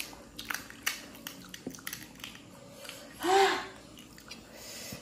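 Crisp panipuri shells crackling in short, sharp clicks as they are cracked open by fingers and chewed. A brief voice sound comes about three seconds in.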